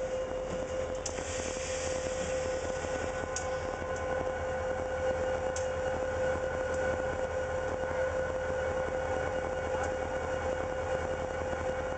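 Diesel locomotive running slowly through a switching move, its engine giving a steady hum with a constant high tone over a low rumble, with a few faint clicks.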